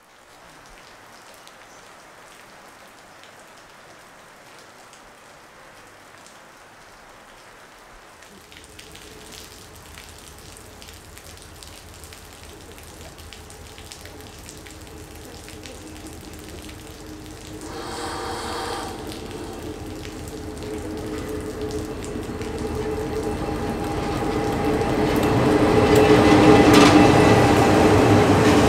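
Steady rain hiss, then a KiwiRail DFB-class diesel-electric locomotive hauling a passenger train approaches: its engine drone grows steadily louder and is loudest near the end as the locomotive and carriages pass close by.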